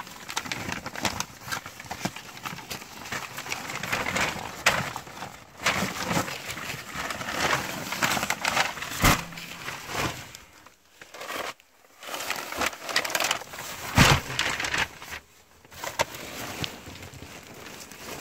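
Sheets of thin kite paper rustling and crinkling as stacks are lifted and shuffled by hand, with two louder thumps about halfway through and again near 14 seconds.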